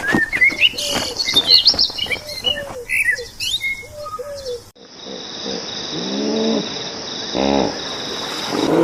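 Birds chirping with many short rising calls, mixed with repeated short low calls. About halfway through it cuts to a steady high insect-like whine with a few short low animal calls over it.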